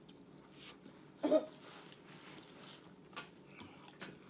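Quiet eating sounds during a mukbang of fried catfish and corn: a short, loud mouth noise about a second in, then two sharp clicks near the end, over a low steady room hum.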